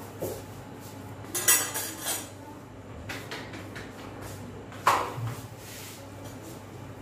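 Steel kitchen dishes and utensils clinking and knocking against each other and the counter: several separate knocks, the loudest about one and a half seconds in and about five seconds in.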